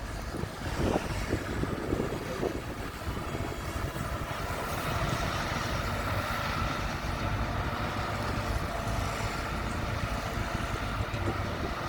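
Diesel engine of heavy earthmoving machinery running steadily with a low rumble, a few knocks in the first seconds and a higher whine that strengthens about four seconds in.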